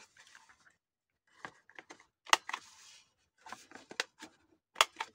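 Handheld quarter-inch corner rounder punch snapping through the corner of card stock twice, about two and a half seconds apart, with softer clicks and paper rustling as the sheet is handled and fitted into the punch.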